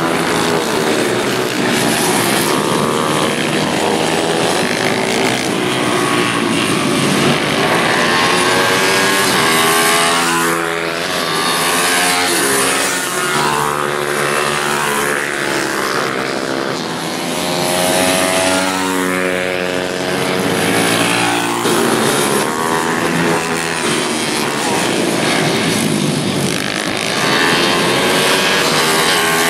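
Several small racing minibike engines (pitbikes and Ohvale minibikes) revving hard and overlapping. Their pitch climbs and drops again and again as the bikes accelerate out of corners and shut off into the next.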